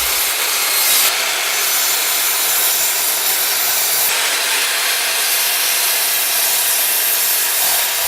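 ROK 2100 W 255 mm sliding bench saw cutting through wood: a steady, loud hissing rasp of the blade in the timber that lasts the whole time, getting a little brighter about a second in and again about four seconds in.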